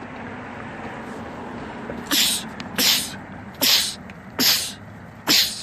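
A person sneezing in a quick, even series: five sharp sneezes about a second apart, starting about two seconds in, over a steady low background hum.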